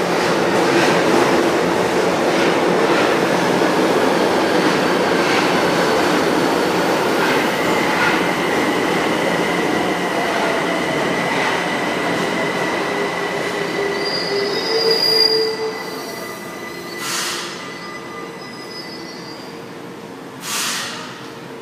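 São Paulo Metro Line 1 train braking into the platform: a loud rumble of wheels that fades as it slows, with a steady high whine through the braking and a brief squeal of the wheels as it comes to a stop. Two short hisses follow near the end.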